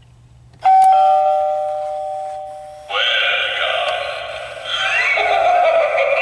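Gemmy animated eyeball doorbell prop sounding an electronic doorbell chime about half a second in, two tones ringing out and dying away over about two seconds. It then plays a louder recorded clip with rising swoops in pitch.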